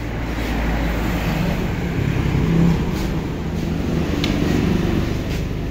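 A motor vehicle engine running, a low rumble that swells about two to three seconds in, with a couple of light clicks near the middle.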